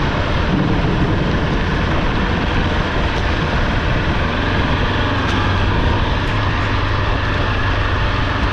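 Motorcycle engine running steadily as the bike rides a dirt track, with heavy wind and rain noise over the microphone.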